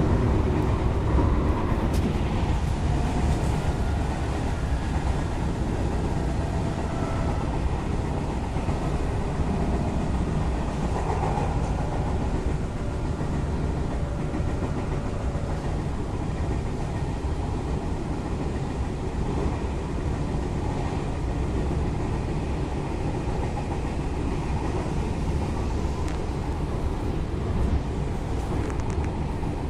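JR West 221 series electric train, a field-added-excitation-controlled EMU, running at steady speed. A continuous low rumble of wheels on rail is joined by faint, shifting motor and gear tones.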